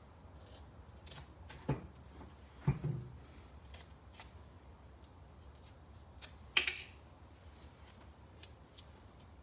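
Hands working a hose patch with glue and athletic tape: a few light knocks and taps a couple of seconds in, and a short tearing rasp of tape about six and a half seconds in.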